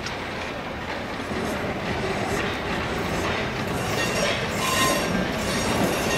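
Small steam tank locomotive rolling slowly forward with one passenger car, getting louder as it comes closer. Its wheels squeal on the curved track for a moment about four to five seconds in.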